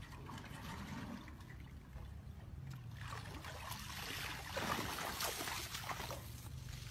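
Water sloshing and splashing as a person wades through shallow water, louder for a couple of seconds just past the middle.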